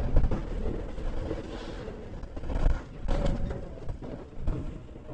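Riding noise from a Honda ADV 160 scooter on the move: wind buffeting the microphone over engine and road noise, loud at first and easing over the first two seconds, with a swell about three seconds in.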